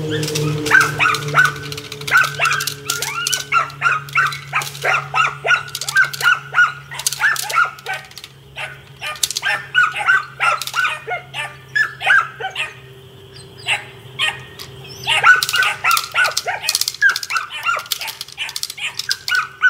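Ten-week-old puppy barking and yipping over and over in quick, high-pitched bursts at a bite roll during bite training, a sign of its strong play drive. The barking stops for about two seconds partway through, then starts again.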